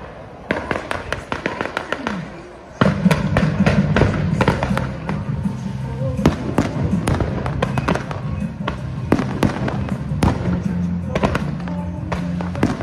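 Aerial fireworks launching and bursting in rapid succession, a dense run of sharp bangs and crackles, over loud pyromusical show music that swells strongly about three seconds in.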